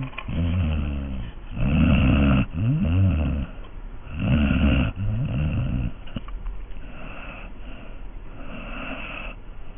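A sleeping pet snoring: about five loud snores, one per breath, with a pitch that bends up and down, then softer, fainter snoring breaths from about six seconds in.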